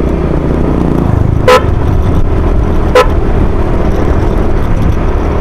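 Two short beeps of a motor scooter's horn, about a second and a half apart, over the steady rumble of the engine and wind noise while riding.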